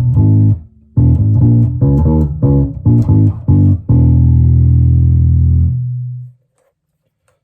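Warwick RockBass Corvette $$ bass guitar played on the bridge pickup with its coils in series, through a small 8-inch, 25-watt combo amp. It plays a short riff of plucked notes, then a low note that rings for about two seconds and fades out.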